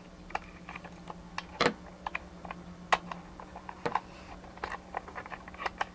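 Hard plastic parts clicking and tapping irregularly as the blue and white housing pieces of a vintage Radio Shack Robotic Banker's arm are handled and fitted together, with a few sharper clicks spread through.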